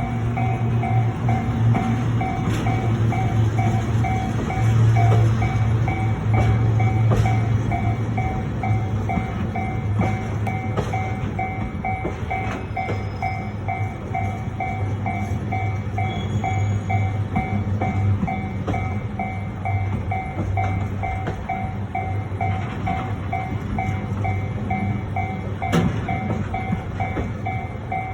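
A railway level-crossing warning bell ringing in an even, rapid, repeating ding over the low rumble of freight wagons rolling very slowly across the crossing, with scattered clicks of wheels over the rail joints.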